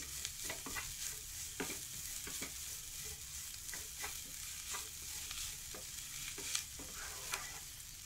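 Wooden spatula scraping and stirring shredded beef and onion masala in a nonstick frying pan, in repeated irregular strokes over a steady sizzle of frying.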